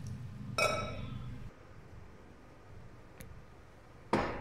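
Water pouring into a metal cooking pot stops about a second and a half in. Just before it stops, a ringing metal clink sounds. Near the end comes a single sharp knock.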